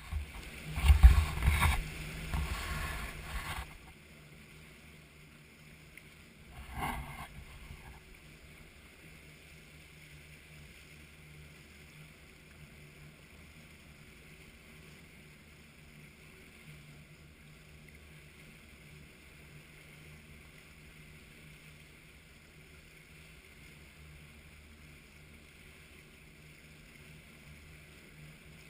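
Boat running at trolling speed: a steady low engine hum under the rushing of water in the wake. There is loud buffeting on the microphone for the first few seconds and once more, briefly, about seven seconds in.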